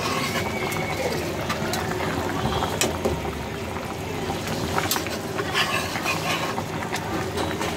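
Vegetable curry broth at a full rolling boil in a metal pot: steady bubbling with scattered small pops.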